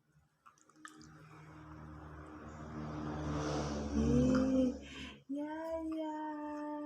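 A rising rustling noise with a brief wavering vocal whine about four seconds in, then a person humming one long steady note from about five seconds on.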